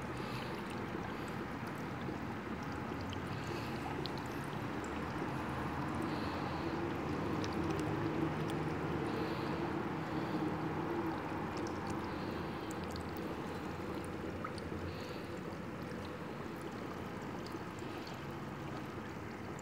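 Steady sound of running, trickling water.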